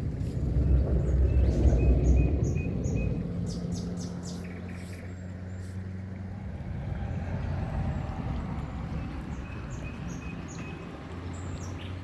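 A low rumble, loudest in the first few seconds, with a steady low hum underneath, while small birds chirp repeatedly in short high notes.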